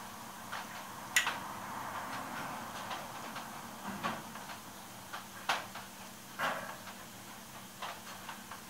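Irregular light metallic clicks and taps of a measuring gauge being handled and tried against a freshly machined bronze pad, over a faint steady hum.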